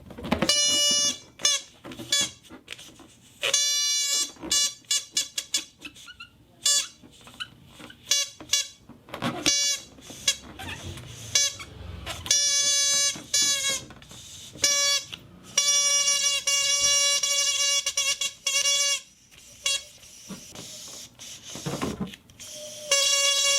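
A toy whistle blown over and over at one steady, buzzy pitch: many short toots and several longer blasts of a second or more. A few brief noisy sounds fall between the toots, about nine seconds in and near the end.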